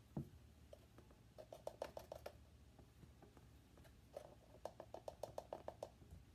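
Two short runs of quick, faint clicks and taps as a plastic measuring spoon scoops and levels baking powder from its container, over a low room hum.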